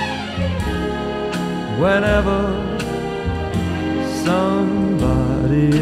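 A song with a singing voice over a steady beat, played back from a cassette tape recorded on a TEAC W-1200 deck.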